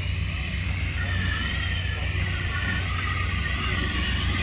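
Engine-driven balloon inflator fan running steadily, a pulsing low rumble, as it blows air into a hot air balloon envelope lying on the ground during inflation.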